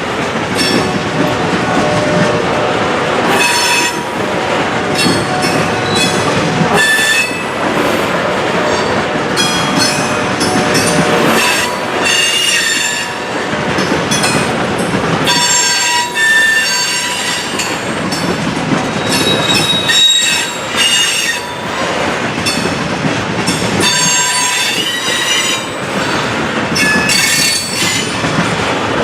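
Freight train's cars rolling past with a steady rumble, their wheels squealing high-pitched again and again, on and off every second or so.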